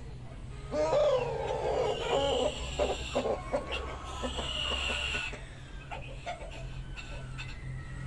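Village chickens (ayam kampung) calling: a loud pitched call starts about a second in, followed by sharper calls and higher cries until about five seconds in.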